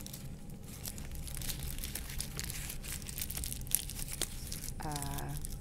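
Train running with a steady low rumble, overlaid by irregular crinkly rustling and small crackles close to the microphone. A short hummed voice sound comes near the end.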